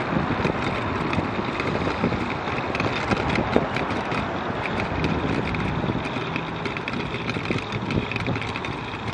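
Wind rushing over the microphone of a camera on a moving bicycle, mixed with road traffic going past alongside. There are frequent small rattles and clicks.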